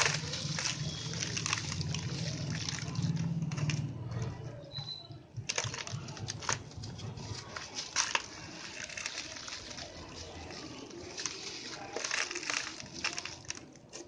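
White concrete crumbling with a dense, crunchy crackle, broken by several sharp snaps in the second half.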